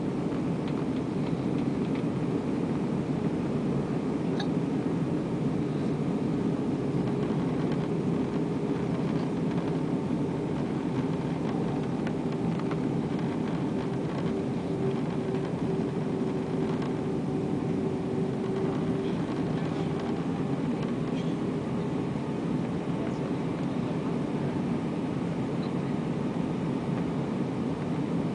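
Steady cabin noise inside an Airbus A320 on approach: the engines and the airflow make an even, low rush with a faint steady hum running through it.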